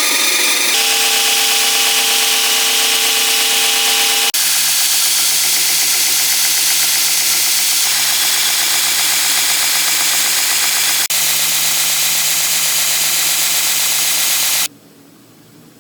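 Workshop power tools running at full speed on a knife handle, with the machine pitch changing abruptly several times. The loud machine noise cuts off suddenly near the end, leaving a much quieter background.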